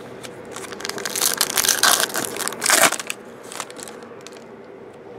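Trading card pack's plastic-foil wrapper crinkling and crumpling in the hands as the pack is opened. The loud crinkling starts about a second in and lasts about two seconds, followed by a few fainter crinkles.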